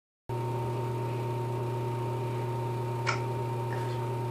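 Steady low hum of a bathroom exhaust fan, with a thin high whine above it and one light click about three seconds in.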